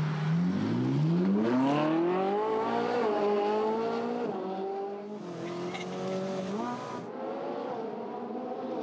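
Ferrari 458's V8 engine accelerating hard, its note climbing steeply for about the first three seconds, then levelling off with a few steps in pitch as it shifts and holds speed.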